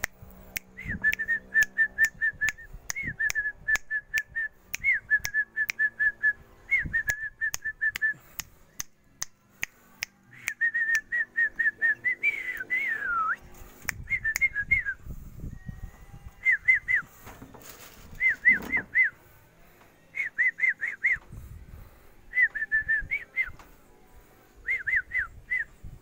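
Quick runs of short, high whistled notes, each run opening on a higher note and repeated every second or two, with one longer falling whistle about twelve seconds in. Sharp clicks come through mostly in the first half.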